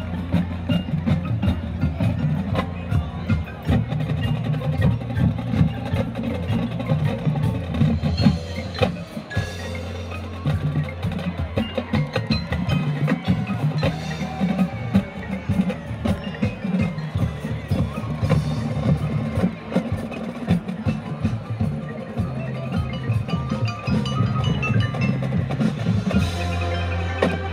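Marching band playing its field show, with the front ensemble's marimbas and other mallet percussion and drums standing out among the sustained band sound.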